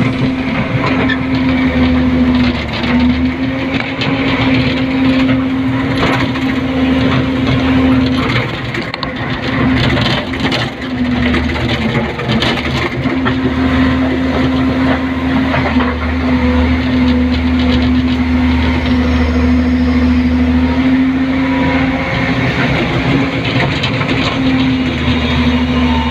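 Excavator's diesel engine and hydraulics working under load, heard from inside the operator's cab: a steady hum that dips out briefly now and then, with scattered knocks and clatter of stones being dug and loaded.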